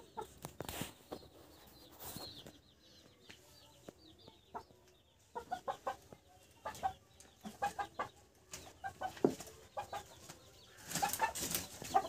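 Chickens clucking: a run of short, repeated clucks through the middle, then near the end a louder flurry as a tethered aseel rooster flaps and jumps.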